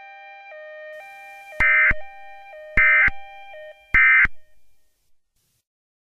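Emergency Alert System end-of-message data tones: three short screeching bursts of digital signalling, about a second apart, marking the end of the alert. Beneath them a quieter bed of held electronic tones steps back and forth between two pitches, then everything stops shortly before the end.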